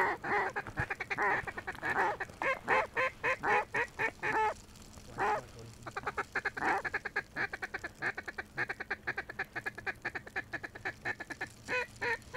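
Mallard duck calls blown by hunters working a circling flock of mallards: long runs of rapid quacks and feed chatter, several notes a second, with a short lull about halfway through.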